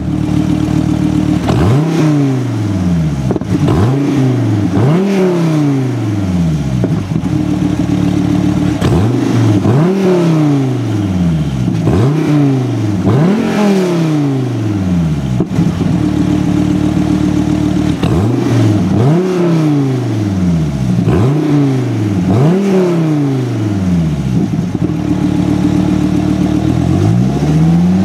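2014 SRT Viper GTS's 8.4-litre V10 free-revving through its side-exit exhausts. It gives quick throttle blips in groups of three or four, each one rising and falling back, and settles to a steady idle between groups.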